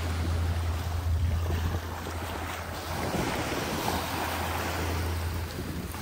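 Small waves washing onto a sandy shore, with wind buffeting the microphone as a steady low rumble that drops away near the end.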